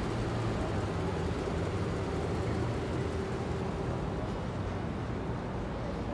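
City street ambience: a steady low rumble of traffic and engines, with an even hum underneath.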